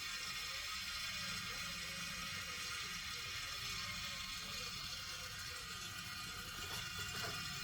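Vacuum oil extractor pipe drawing air and the last of the oil from a lawnmower engine sump: a steady hiss with faint gurgling, a sign that the sump is nearly empty.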